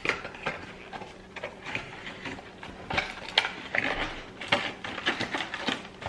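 Packaging of a boxed skincare kit being handled and opened: irregular rustling with scattered light clicks and knocks.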